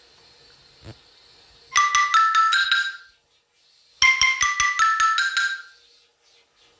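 Samsung Galaxy S6 ringtone with a marimba-like sound: a quick run of about six bright notes, a short pause, then the same run again.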